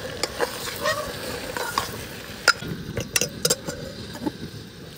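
A steel ladle stirring vegetables in an aluminium pressure-cooker pot, with a light sizzle of frying. The ladle scrapes and knocks against the metal, with a few sharp clinks between about two and a half and three and a half seconds in.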